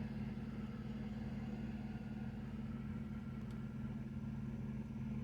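Big-rig truck engine idling, a steady low hum heard from inside the cab.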